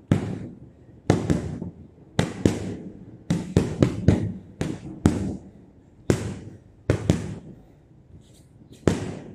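Boxing gloves punching a hanging heavy bag: about fifteen sharp smacks, in single shots, pairs and a quick run of four about three and a half seconds in, each with a short echo.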